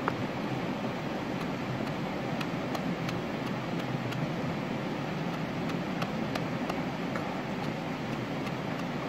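Pestle pounding chilies and greens in a coconut-shell bowl, heard as light, irregular taps against the shell. A steady rushing noise runs underneath and is louder than the taps.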